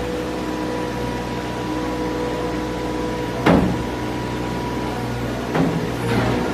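Compact track loader's engine running steadily with a constant hum, and a sharp metal knock about halfway through, then a lighter one about two seconds later.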